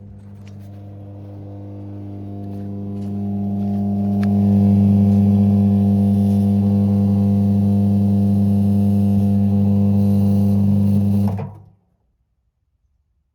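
Haier washing machine running with a brick inside, giving a steady low hum that grows louder over the first few seconds and then cuts off abruptly near the end.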